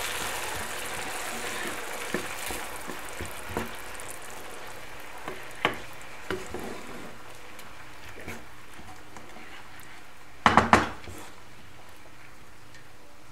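Hot water bubbling and sizzling in a frying pan of toasted rice and vermicelli, fading slowly, while a wooden spoon stirs it and knocks lightly against the pan now and then. About ten and a half seconds in comes a louder clatter of knocks against the pan.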